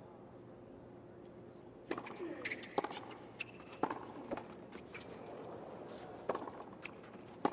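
Tennis rally on a hardcourt: after a quiet, steady crowd hum, sharp racket-on-ball strikes begin about two seconds in and come roughly once a second.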